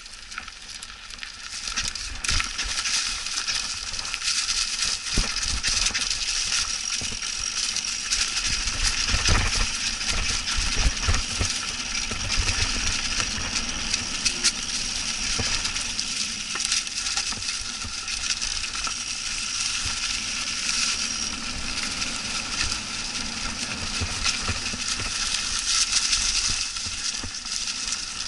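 Mountain bike rolling fast over a dry, leaf-covered dirt trail: tyres crunching through the leaves, with a constant clatter of the chain and bike parts rattling over the bumps.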